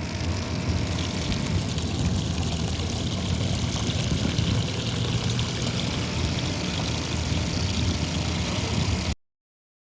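RS775 DC motor running a 3D-printed water pump steadily, with a rushing water noise over the motor's hum. It cuts off suddenly about nine seconds in.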